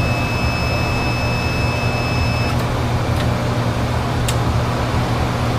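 Infrared BGA rework station running with a steady machine hum as a reflow finishes. A thin high whine stops about halfway through, followed by two sharp clicks as the station's cooling is switched on.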